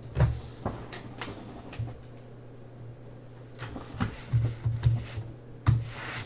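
Scattered clicks and knocks from things being handled on a desk, some with dull thumps, the loudest cluster near the end, over a steady low electrical hum.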